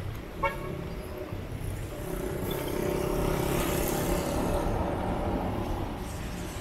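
Cars passing on a rain-wet city street: tyre hiss on wet asphalt swells over a couple of seconds and then fades, over a steady low traffic rumble. A short beep sounds about half a second in.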